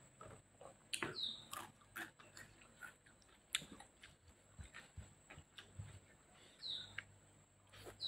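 Eating sounds from hands tearing apart grilled chicken and chewing: scattered small wet clicks and smacks. A short, high, falling chirp, likely a bird, sounds twice, about a second in and near the end.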